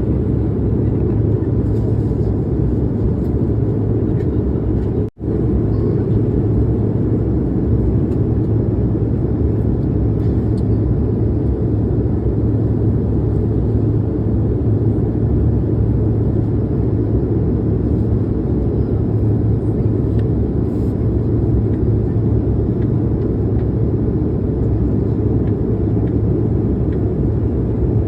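Airliner cabin noise during the climb after takeoff: a steady, loud rumble of the engines and rushing air with a low hum. It cuts out for a moment about five seconds in.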